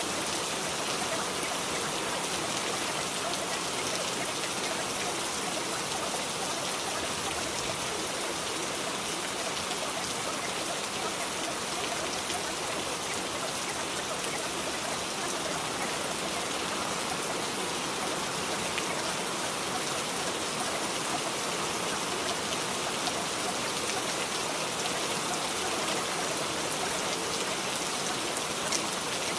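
Steady rain sound: an even, unbroken hiss of falling rain.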